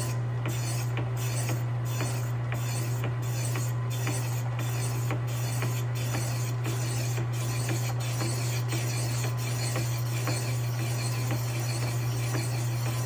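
Old Pratt & Whitney metal lathe running at low speed and cutting metal, with a steady motor hum and a light clink about one and a half times a second, once per turn of the spindle, that fades away in the second half.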